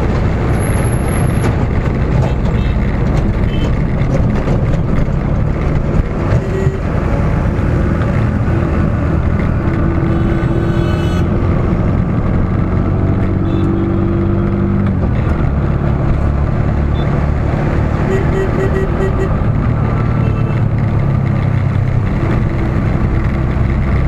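Dense road traffic heard from a moving vehicle: an engine running and road and wind noise, with trucks and cars close by. A few short beeps late on, of the kind horns make in such traffic.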